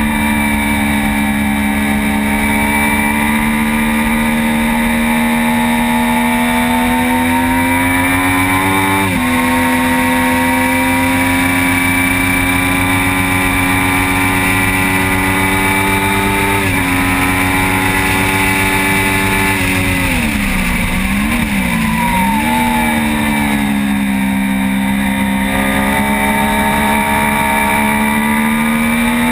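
Motorcycle engine heard onboard at speed on a race track, its pitch climbing steadily and dropping sharply twice, about a third and just over half of the way in, as it shifts up through the gears. Later the pitch dips and wavers down through a corner, then climbs again as it accelerates.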